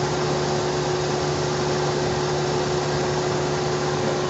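Mitsubishi Space Wagon's 4G63 four-cylinder engine idling steadily with a constant whine, no longer hunting up and down: the rough idle is cured after a repair at the mass airflow sensor inlet.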